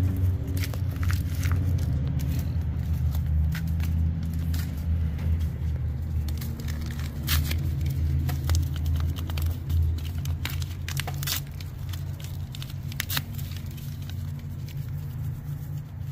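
Scattered crinkling, crackling and clicks of instant yeast packets being emptied into buckets of bait corn, over a steady low engine-like hum.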